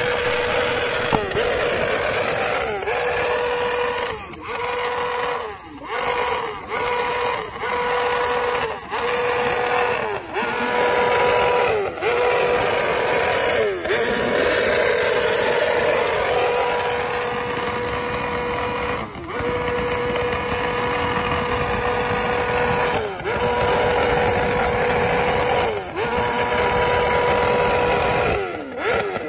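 BMW S1000RR inline-four sportbike engine revved hard and held at a steady high pitch for seconds at a time. The revs drop briefly and climb straight back again, over and over, more often in the first ten seconds.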